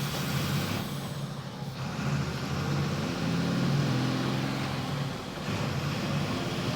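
Volkswagen 17.230 EOD city bus engine running at high revs, its pitch climbing as it pulls, with a brief dip in loudness about five seconds in before it picks up again.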